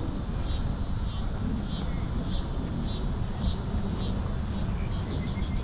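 High, buzzy animal calls repeat about every half second from the trees, over a steady low rumble.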